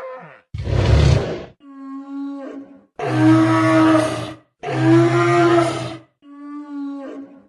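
Stegosaurus creature sound effect: a series of five dinosaur calls. A rough, deep roar opens it, followed by alternating quieter pitched moans and two louder pitched bellows, each about a second long with short pauses between them.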